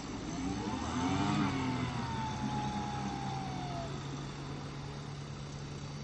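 Outboard motor on the stern of an inflatable raft revving up and then easing back. Its pitch climbs over the first second or so, falls away over the next few seconds, and settles into a steady run.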